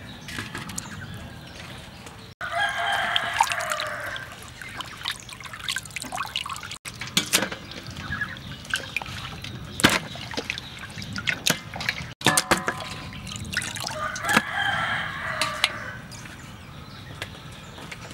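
A rooster crows twice, each crow about two seconds long and falling at its end, a couple of seconds in and again near the end. Between and under the crows come light dripping-water sounds and sharp clicks.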